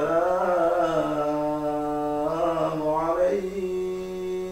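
A man's voice chanting one long phrase, with wavering, ornamented held notes and a step in pitch about three seconds in; it breaks off at the end.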